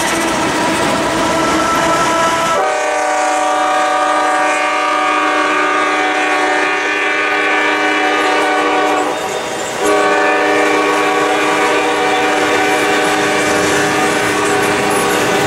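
A diesel freight locomotive's air horn sounds a long blast that comes in strongly about two and a half seconds in, breaks briefly about nine seconds in, then sounds again and holds. Under it, the passing intermodal freight cars roll by with wheels clicking over the rail joints.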